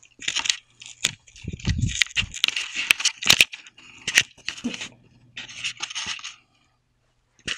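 Camera handling noise: rustling and knocking against the microphone in irregular bursts, with several sharp clicks and a few low thumps, as the handheld camera is moved and turned around. A faint steady low hum runs underneath.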